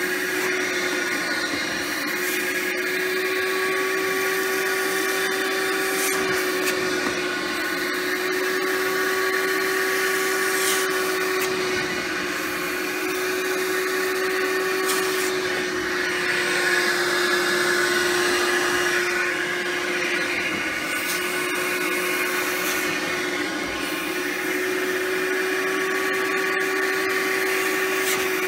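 Rug Doctor carpet cleaner running, its motor giving a steady hum as the upholstery hand tool rinses and sucks the cleaner back out of a cloth seat. The pitch wavers slightly as the tool is drawn across the fabric.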